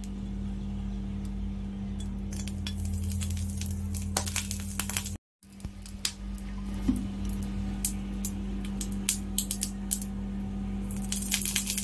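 Cooking oil heating in a non-stick frying pan, with scattered sharp ticks and crackles that grow denser near the end as the oil gets hot, over a steady low hum.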